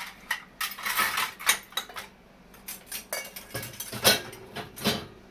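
Dishes and ladles clinking and clattering in quick, irregular knocks as they are loaded into a dishwasher's racks.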